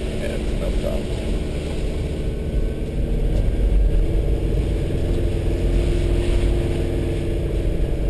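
Car engine running and tyres on a rough dirt road, heard from inside the vehicle as a steady low drone that swells slightly a few seconds in.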